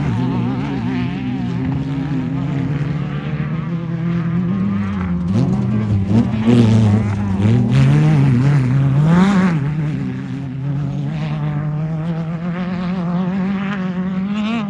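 Off-road race car engine running hard, its pitch rising and falling as it revs, loudest with the sharpest pitch swings in the middle.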